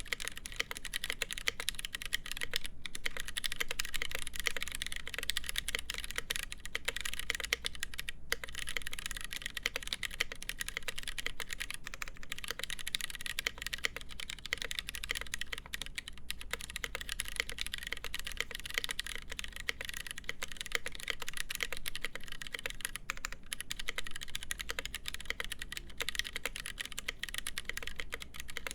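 Steady, fast typing on a mechanical keyboard with lubed Gateron Brown tactile switches, a full polycarbonate plate and GMK doubleshot ABS keycaps: a dense run of keystroke clicks with a few brief pauses.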